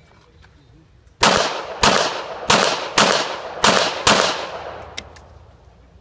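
A 9mm Glock 34 pistol fired six times in a quick string about half a second apart, starting about a second in, each shot followed by a short ring of echo. A light click comes in the pause near the end.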